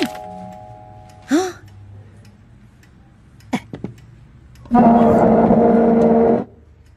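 Cartoon sound effects. A short set of ringing tones dies away at the start, a brief rising squeak comes a little over a second in, and a couple of clicks follow. About halfway through, a loud sustained sound with a steady pitch lasts nearly two seconds, the loudest thing here.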